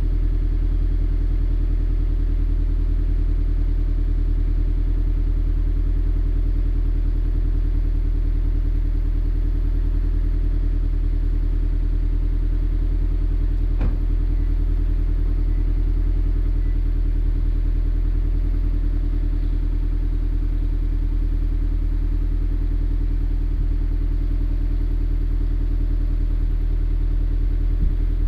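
The 2.0-litre flat-four of an 86-platform coupe, fitted with JDL unequal-length headers and an Invidia Q300 cat-back exhaust, idling steadily through the exhaust.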